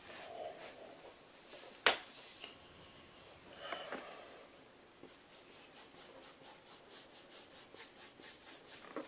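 Hands handling a painted canvas: a sharp knock about two seconds in, a brief rustle, then a run of quick rubbing strokes on the canvas surface, about four or five a second, through the second half.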